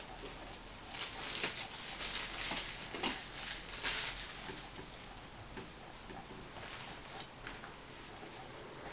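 Rustling and crinkling of packaging with small clicks as a sealed phone box is opened and handled, busiest in the first few seconds and quieter after.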